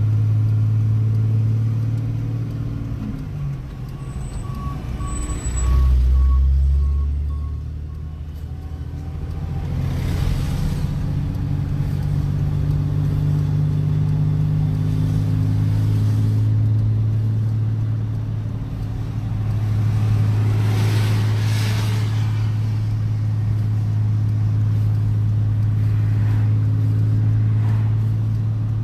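Vehicle engine running at a steady drone, heard from inside the cab while driving on the road. Other vehicles whoosh past about ten and about twenty-one seconds in, and there is a low thump about six seconds in.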